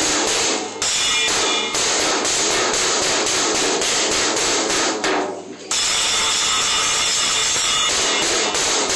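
A First Act Discovery children's drum kit being bashed rapidly and loudly with drumsticks, cymbal and drums struck over and over in a fast, uneven stream, with a brief pause about five seconds in.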